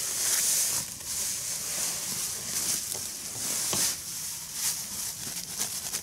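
Coarsely crushed maize poured from a woven plastic sack onto a concrete floor: a hiss of falling grain, strongest in the first second, with the sack rustling as it is lifted and emptied.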